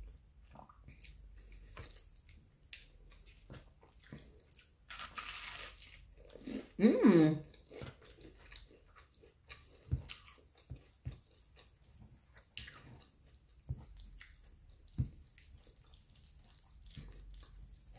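Close-up eating sounds of a person chewing and slurping spaghetti, with scattered soft clicks. A short hiss comes about five seconds in, and a brief falling hum of the voice about seven seconds in.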